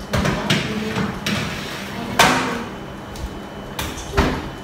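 Metal baking tray slid onto the rack of a built-in electric wall oven and the rack pushed in, with a string of metal clanks and scrapes, the loudest about two seconds in; then the oven door is shut with a knock near the end.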